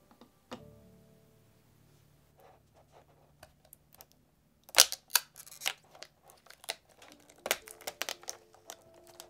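Clear plastic blister packaging and its tissue wrapping being handled to unwrap small figure accessories. The plastic crinkles and clicks in short clusters, loudest about five seconds in and again around seven to eight seconds. Soft background music plays underneath.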